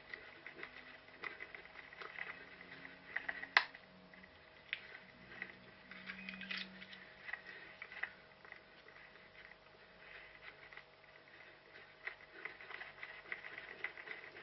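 Irregular crackling and pattering of an orienteer's running footfalls and rustling, picked up by a head-mounted GoPro, with one sharp snap about three and a half seconds in. A faint steady hum lies underneath.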